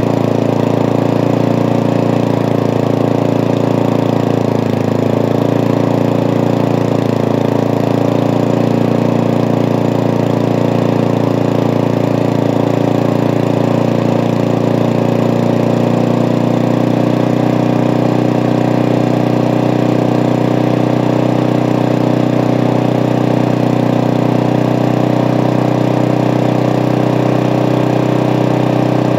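Walk-behind rotary lawn mower's small single-cylinder engine running steadily at a constant speed, with a slight dip in pitch about five seconds in.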